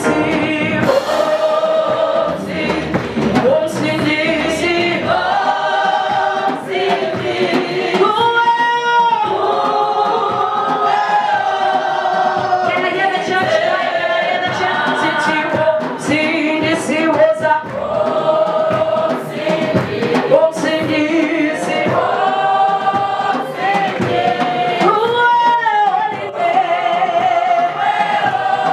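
Live gospel song: a woman leads on a microphone while many voices sing along in harmony, with some hand clapping.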